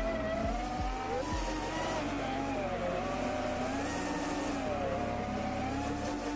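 FPV quadcopter's brushless motors and propellers whining in flight, the pitch drifting up and down as the throttle changes.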